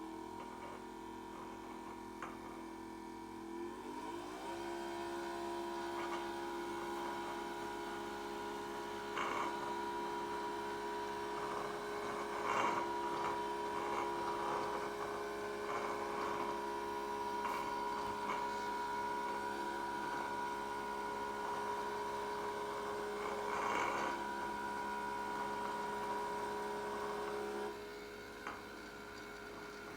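Small 12 V DC vacuum motor of a homemade vacuum cleaner running with a steady whine. Its pitch steps up in the first few seconds as it speeds up. A few short clicks and rattles come through the middle, and part of the whine drops away near the end.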